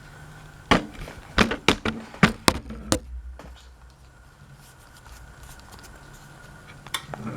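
A quick run of sharp clicks and taps, then a faint steady hum, with one more click near the end.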